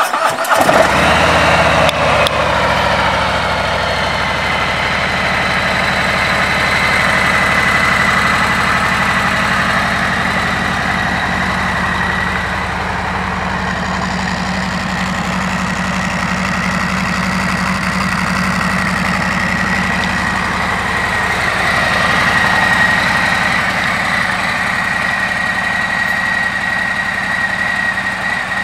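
2020 Harley-Davidson Freewheeler trike's Milwaukee-Eight 114 V-twin starting, catching right away and settling within a couple of seconds into a steady idle.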